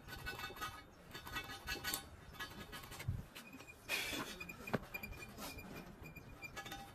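Faint background music, with a couple of sharp metallic clinks from work on a bare steel truck wheel rim about four and five seconds in.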